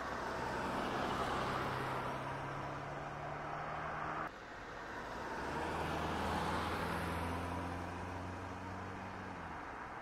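Motor running with a steady low hum and a whirring noise, swelling and fading twice, broken by an abrupt cut about four seconds in.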